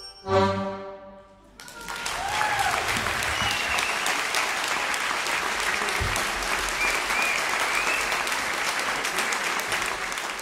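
An accordion orchestra's short closing chord, cut off within the first second, then an audience breaking into steady applause with a few voices calling out.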